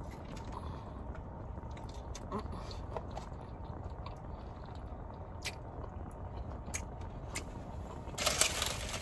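Close-miked chewing and mouth sounds from eating, with faint clicks over a steady low rumble. A louder crunchy, rustling noise starts near the end.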